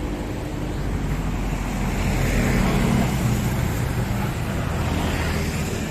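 Yamaha RX-King's single-cylinder two-stroke engine running after a rebuild with a new connecting rod, the revs rising a little about two seconds in and easing back.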